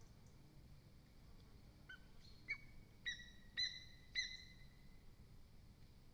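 Lesser spotted eagle calling: a run of about five short, clear call notes starting about two seconds in, rising in pitch over the first few, the last three the loudest.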